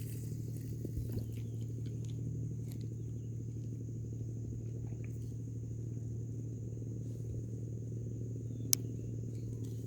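Steady high-pitched insect drone, like crickets, over a low steady hum, with one sharp click near the end.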